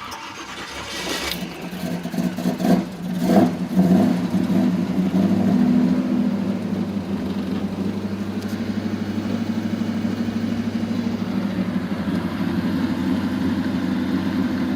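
Freshly rebuilt carbureted car engine with headers firing up and being revved a few times in the first four seconds, then settling into a steady idle with an even, pulsing lope. The sound cuts off suddenly near the end.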